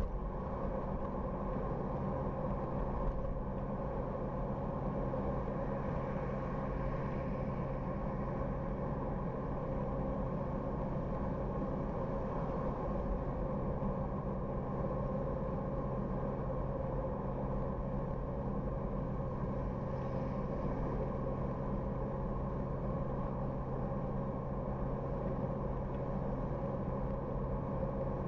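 Car driving along at a steady pace: an even engine hum with tyre and road noise, unchanging throughout.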